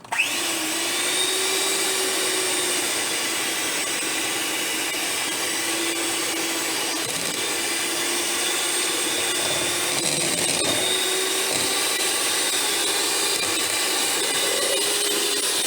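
Electric hand mixer switched on abruptly and running steadily, its beaters whipping a partly solidified homemade hair grease mixture; the motor hum wavers slightly in pitch.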